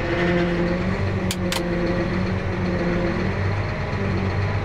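Tractor engine running with its PTO-driven electric generator, a steady machine hum whose tones shift partway through. Two sharp clicks about a second and a half in.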